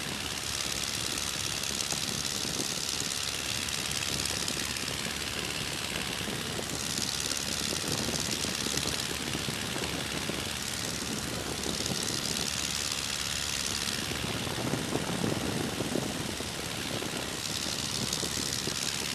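Tiger Moth biplane's four-cylinder Gipsy Major engine and propeller running steadily at climb power just after take-off, with a rush of wind over the open cockpit that swells and eases every few seconds.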